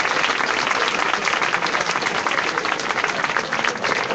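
Crowd applauding, a dense steady clapping.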